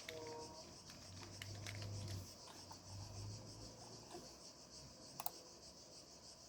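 Faint clicks, taps and scratching of computer hardware being handled, as a power supply is swapped and connected, with two short low hums a second or two in.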